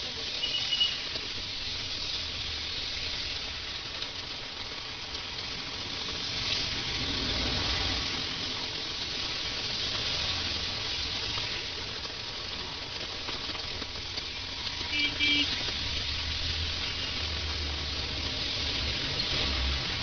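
Heavy rain falling steadily on a street, an even hiss. Two short high-pitched tones cut through it, one near the start and one about fifteen seconds in.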